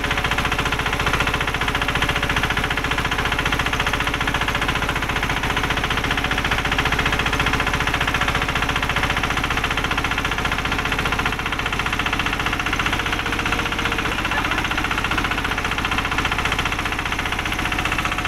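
A vehicle engine running steadily with a fast, even pulsing beat as it pulls the vehicle up a dirt road.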